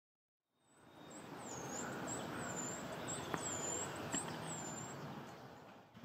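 A bird repeating thin, very high whistled notes, each swooping down and back up, about two a second, over a steady outdoor background. The notes stop about five seconds in.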